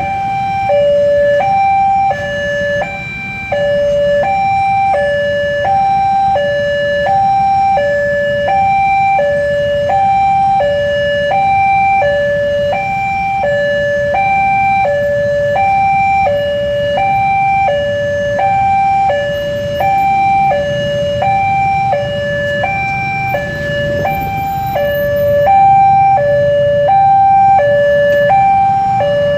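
Railway level-crossing alarm sounding: an electronic two-tone warning that alternates high and low about once a second, over the low rumble of motorcycles idling at the closed crossing.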